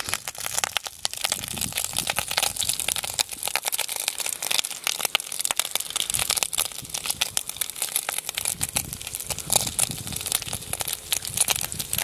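Fish frying in hot oil in a pan: a dense, steady crackle of small spitting pops.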